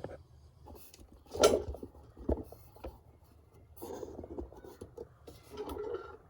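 Handling noise: a few knocks and clatters with soft rustling as things are moved about. The sharpest knock comes about one and a half seconds in.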